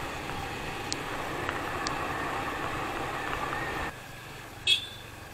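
Steady vehicle noise of a motorcycle ride, likely the Yamaha FZ25's engine with road noise. It cuts off abruptly about four seconds in to a quieter background. A single short, sharp high-pitched sound follows near the end.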